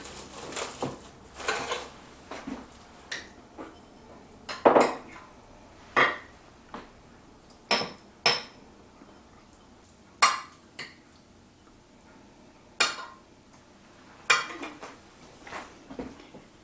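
A serving spoon clinking and scraping against a glass baking dish and small serving bowls as pasta salad is dished out: separate sharp clinks every second or two, some ringing briefly.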